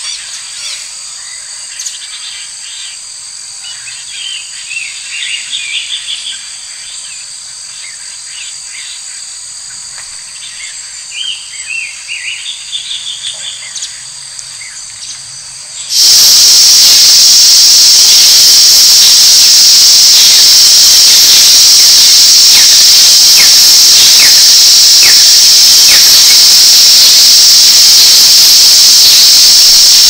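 Forest ambience: a steady high insect drone with clusters of a small bird's short chirps and trills. About halfway through it changes abruptly to a much louder, steady high insect buzz that covers everything else.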